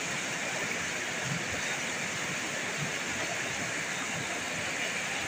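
Steady rushing of a swollen river in flood.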